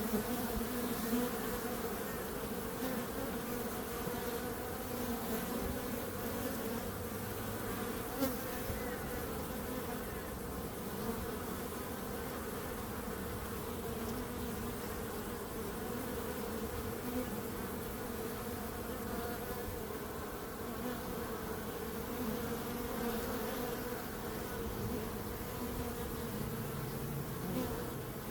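A swarm of bees buzzing, a steady dense hum of many wings that wavers slightly in pitch.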